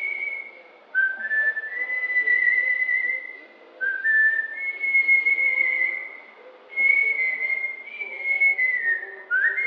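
A woman whistling a song tune through pursed lips: four phrases, each stepping up to a high held note, with short pauses between them.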